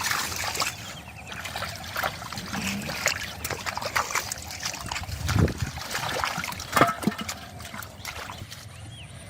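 Water splashing and trickling in irregular strokes as hands work through shallow muddy water and water hyacinth. Two louder splashes come just past halfway.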